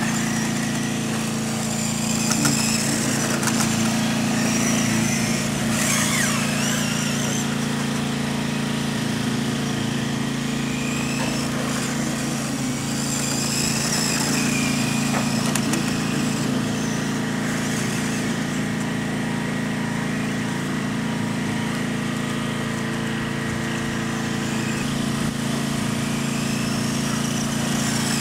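Electric RC car's 540 motor and gears whining, rising and falling in pitch as the throttle is worked, over a steady low mechanical hum.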